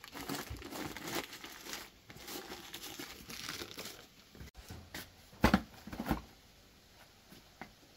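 Paper wrapping being crumpled and rustled by hand, then two sharp knocks a little past the middle as a plastic basin is set down into a woven basket.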